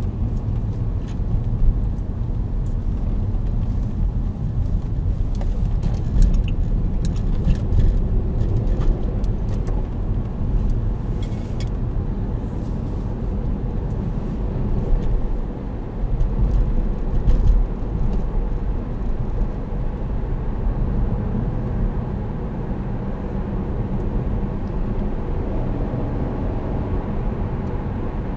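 Low rumble of a 2008 Saab 9-5 2.3t's turbocharged four-cylinder engine and its tyres on the road, heard from inside the car while driving, with scattered light clicks and rattles in the first half.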